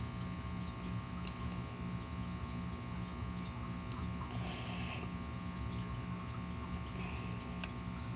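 Steady background hum with a faint regular pulsing, and a few small sharp clicks of plastic LEGO pieces being handled and pressed together, three of them spread across the span.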